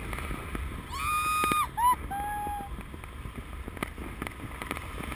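Fireworks heard from the air over wind noise on the microphone: scattered sharp pops, and about a second in a loud high whistle that holds briefly, followed by a short rising note and a lower held note.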